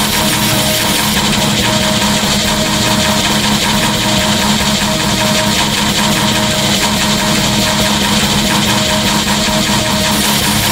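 Black metal recording starting abruptly at full volume: a dense, steady wall of distorted guitars and drums.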